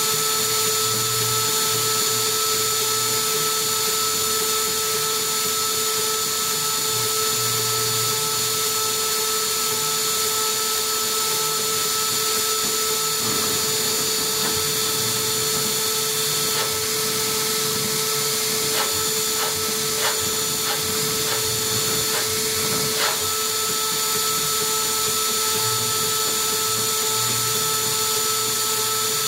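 Small tabletop CNC mill's spindle running with a steady high-pitched whine as its pointed engraving bit mills copper away around the traces of a printed circuit board, with a few light ticks past the middle.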